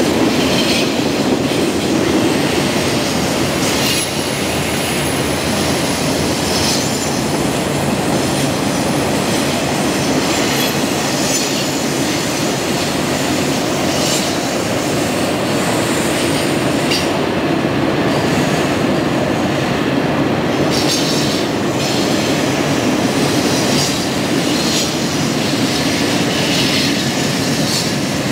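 Loaded coal hopper cars of a freight train rolling past on a curve: a steady rumble of steel wheels on rail, with brief high wheel squeals every few seconds.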